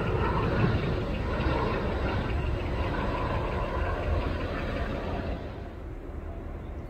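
Brussels Airlines Airbus A330 jet passing low overhead on approach with its gear down. Its engines give a steady rumble with a high whine on top, fading as it moves away; the whine dies out about five seconds in.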